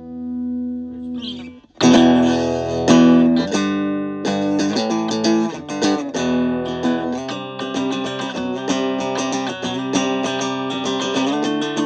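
Telecaster electric guitar played through a 15-watt solid-state Fender Frontman PR-241 combo amp: a ringing chord fades, then strummed chords start about two seconds in and turn to quicker picked notes. The amp is passing sound again after its no-output fault was repaired.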